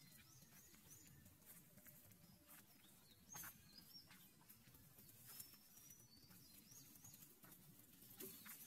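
Faint outdoor ambience of short, high chirps, with scattered crackles of dry leaf litter, the loudest about three and a half seconds in and again near the end.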